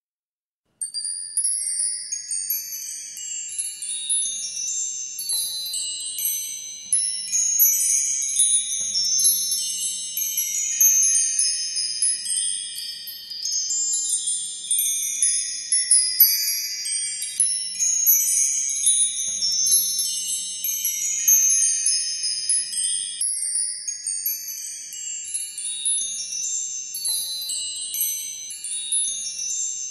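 Wind chimes ringing without a break: many high, overlapping notes struck in quick clusters, starting about a second in.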